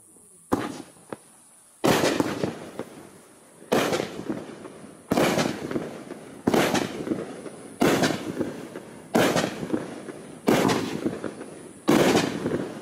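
Raccoon Fireworks 'Big Color' 200-gram consumer firework cake firing. After two small pops, eight shots go off about every second and a half. Each is a sharp bang followed by a fading crackle.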